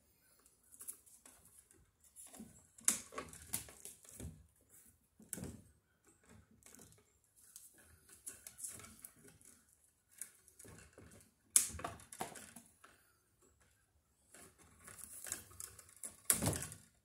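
White sheathed electrical cables being worked into a blue plastic electrical box by hand: irregular clicks, taps and rustles of wire against the plastic box, with a sharp click about two-thirds through and a louder one near the end.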